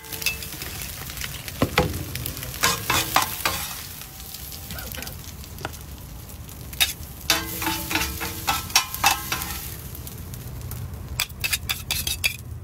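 Metal spatulas scraping and clacking against a flat iron griddle as spiced boiled-egg pieces are tossed and scooped up, in irregular clusters of sharp clicks over a light sizzle of frying.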